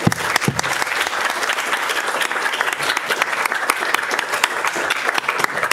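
Audience and panel applauding: many hands clapping steadily.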